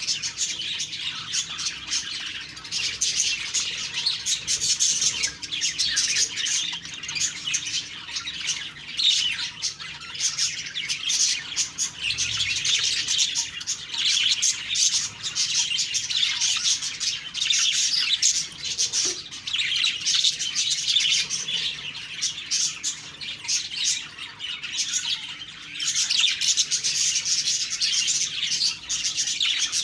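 Budgerigars chattering and warbling, a continuous stream of rapid chirps and twitters with occasional squawks.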